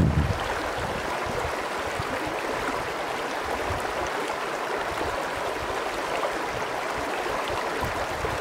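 Shallow mountain creek flowing, a steady burble of running water; low wind rumble on the microphone dies away just after the start.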